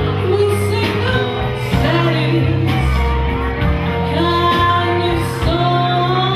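Live band music with a woman singing lead into a handheld microphone, backed by a drum kit with cymbals.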